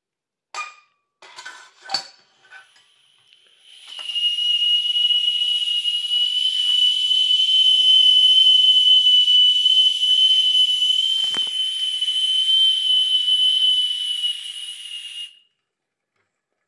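Steam whistle on a small model steam engine's brass boiler blowing one long, steady high note over a hiss of steam for about eleven seconds, then cutting off sharply. Before it come a few light metallic clinks.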